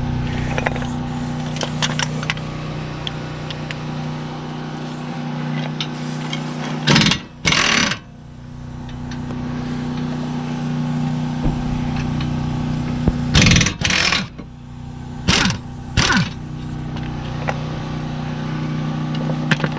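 A power tool, likely an impact wrench, rattling in four short bursts as the two 17 mm brake caliper bracket bolts are broken loose and run out, over a steady low hum.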